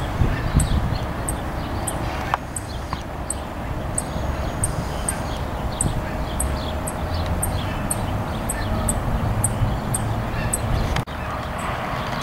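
Outdoor ambience: a low, uneven rumble of wind on the microphone under a short high chirp repeating about three times a second, with a brief dropout near the end.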